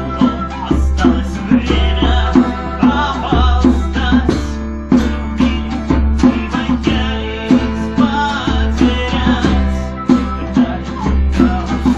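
Live acoustic band music: acoustic guitar strummed and plucked in a steady rhythm, over a sustained low bass.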